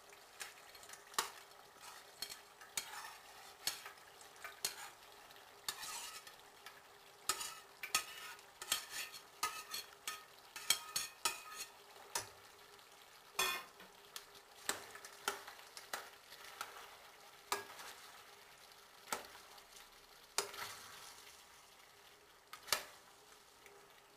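A metal spoon stirring chopped vegetables and tomatoes in a stainless steel pot, with irregular clinks and scrapes against the pot's sides over a steady sizzle of frying.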